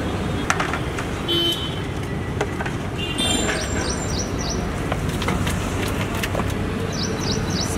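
Steady traffic noise, with a steel ladle knocking and scraping against a large metal cooking pot as the last haleem is scraped out. There are a few sharp clicks and two quick runs of short high chirps.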